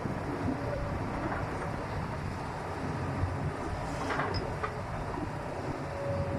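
Diesel engines of an excavator and a dump truck running steadily, with a short clatter about four seconds in.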